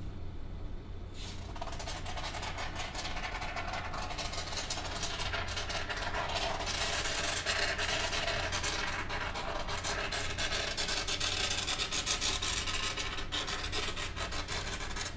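Can of expanding spray foam being dispensed through its straw nozzle: a crackly, sputtering hiss that starts about a second in and keeps going steadily.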